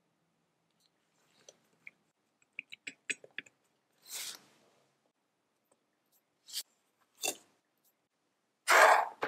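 Close-up handling of small tin toy parts with tweezers and gloved hands: a run of light clicks and taps, then a few short scrapes, the loudest a brushing scrape near the end.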